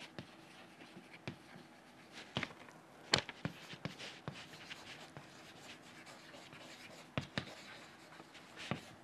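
Chalk writing on a chalkboard: faint scratchy strokes and sharp little taps as the words are written, the sharpest tap about three seconds in.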